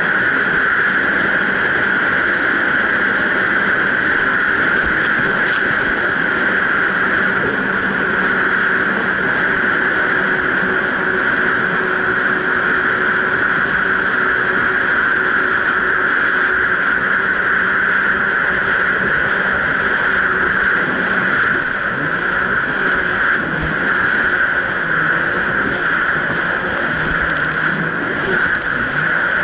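Jet ski engine running steadily under way, over a constant rush of water and wind; in the last several seconds its pitch wavers up and down as the throttle changes.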